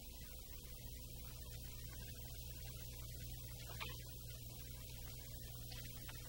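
Faint, soft background music over a steady low mains hum, with one small click a little before four seconds in.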